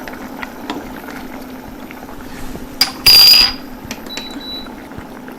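Metal kitchen utensils handled at the stove: light clicks, then a short, loud metallic clatter with a high ringing note about three seconds in, over a steady low hum.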